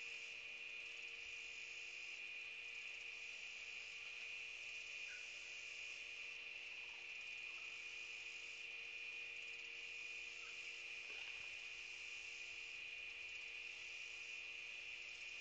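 Steady high-pitched insect chorus, with a faint steady low hum beneath it.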